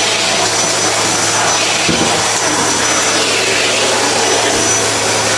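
Vacuum cleaner running steadily at full suction: a loud rush of air over a steady low motor hum and a thin high whine.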